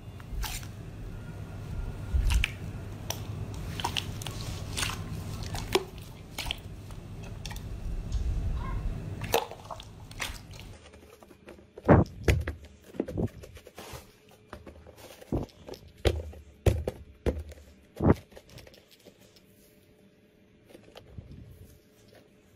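Hands squishing and pressing slime: first a steady churning with many small clicks and pops as a hand works a bowl of glossy red slime, then, from about halfway through, sharper scattered pops and crackles, a few of them loud, as a thick multicoloured slime mass is squeezed and pulled apart.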